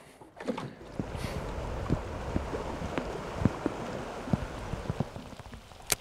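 Water wash around a drifting small fishing boat: a steady noisy splash and slosh with many small irregular taps and knocks, starting about a second in, and one sharp click just before the end.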